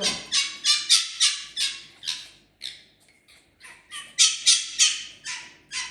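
Fennec fox giving a rapid run of short, shrill, squawking calls, about three a second, pausing briefly midway before starting again.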